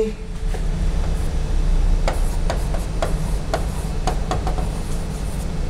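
Faint, scattered taps and scrapes of a stylus writing on an interactive display screen, over a steady low hum.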